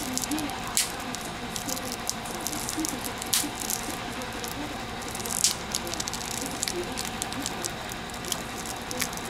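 Irregular crackling and small snaps of adhesive tearing as a phone's LCD display module is peeled off its metal midframe, the glue softened by heating at 100 °C. The sharpest snaps come about a third of the way in and just past halfway.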